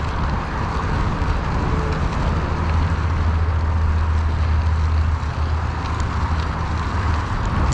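Mountain bike rolling along a dirt and gravel road: steady tyre noise with a low rumble of wind on the microphone.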